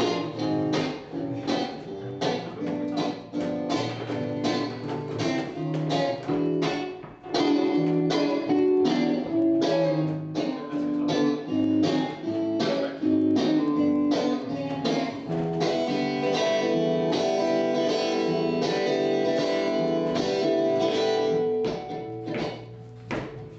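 Acoustic guitar playing an upbeat instrumental intro: quick, even strummed chords, then several seconds of held, ringing chords before quicker strokes return near the end.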